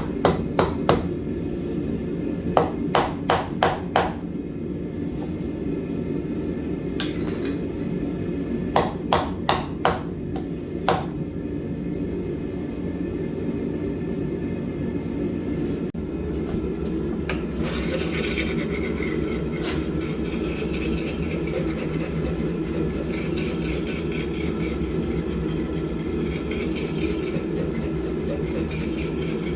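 Hammer blows on steel at the anvil in short runs of up to five quick strikes, over a steady low rumble. After about sixteen seconds the hammering stops and a grainy, hissing sound takes over above the rumble.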